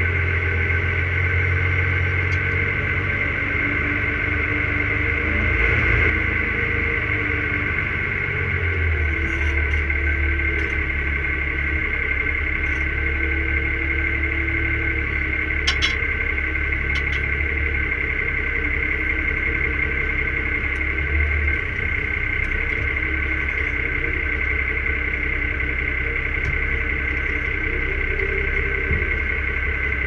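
New Holland T6050 tractor engine running steadily while pulling a plough, heard from inside the cab, with a constant high whine over a deep low rumble. A few brief clicks come about halfway through, and the low end of the engine note shifts slightly twice.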